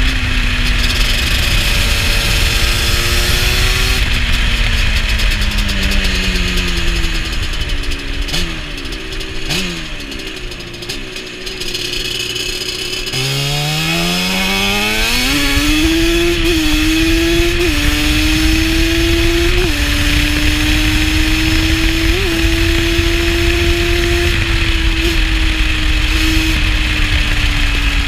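Yamaha Banshee 350's twin-cylinder two-stroke engine through Pro Circuit pipes, ridden on the quad. The revs fall away as it slows and stay low for a few seconds near the middle, then it accelerates hard with a steeply rising pitch, dipping briefly at each gear change. It settles into a steady high-revving cruise.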